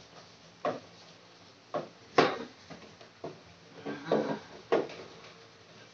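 White plastic medicine box being handled: its lid and removable inner tray knock and click against the box about half a dozen times, the loudest knock a little over two seconds in.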